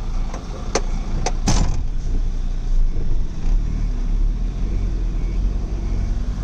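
Car-carrier truck's diesel engine running as the truck pulls away, a steady low rumble, with a few sharp clicks or rattles in the first two seconds.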